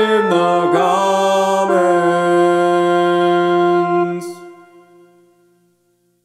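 A man singing the end of a short melody over music, landing on a long held note and chord about two seconds in. It cuts off at about four seconds and its echo dies away into silence.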